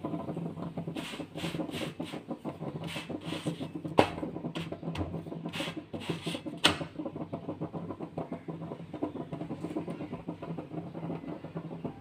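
Chapati cooking on a hot iron tawa: a dense crackle with a series of short hisses through the first half. There are two sharp taps as it is handled, over a steady low hum.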